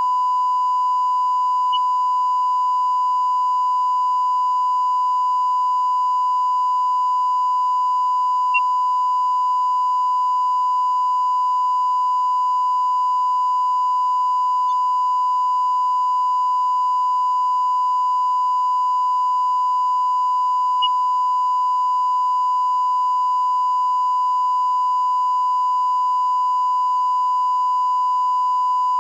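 A steady 1 kHz sine test tone at one unchanging pitch and level, with two faint ticks, about nine and twenty-one seconds in.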